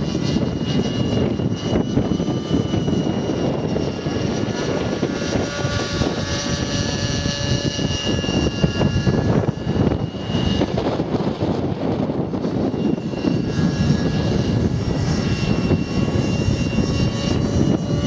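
Align T-Rex 600 radio-controlled helicopter with a nitro glow engine flying overhead, its engine and rotor head running with a steady high whine over a rumble. The pitch of the whine shifts a little around the middle as it manoeuvres.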